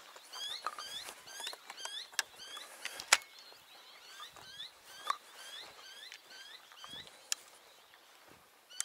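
A bird calling a rapid series of short, upward-flicking chirps, about four a second. The chirps thin out and fade toward the end. Several sharp clicks and crackles cut across them, the loudest about three seconds in.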